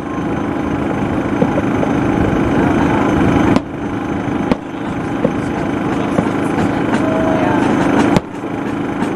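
Fireworks shells bursting overhead: three sharp bangs, about three and a half seconds in, a second later, and just after eight seconds. Under them runs the steady low rumble of the cruise boat's engine.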